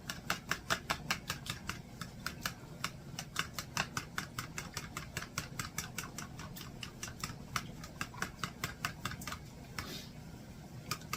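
Raw eggs being whisked in a bowl: the whisk clicks against the bowl about four to five times a second, with a short pause near the end.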